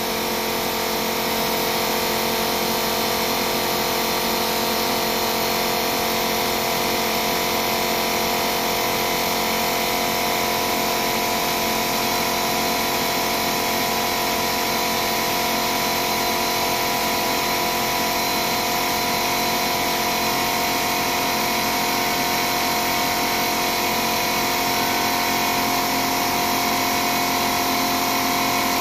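Electric shop air compressor running steadily, a constant motor and pump drone with several fixed pitches.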